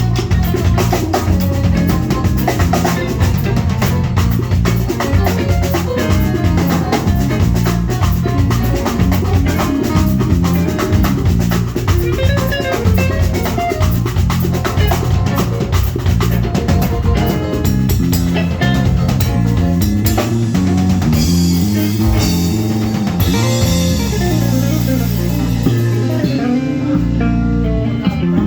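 Live band playing: a drum kit with a busy beat over bass and guitar. About two-thirds of the way through the drumming thins out, leaving bass and guitar lines with fewer hits, and the cymbal shimmer fades near the end.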